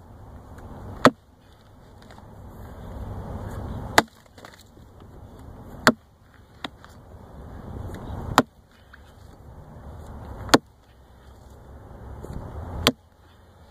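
An 8-pound splitting maul striking a round of dried cedar, six heavy blows at a steady pace about every two seconds, each hit a sharp crack, with a swelling low rush before each swing lands.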